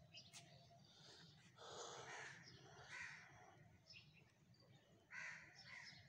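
Crows cawing faintly, a few short harsh calls about two, three and five seconds in, over a faint low steady background noise.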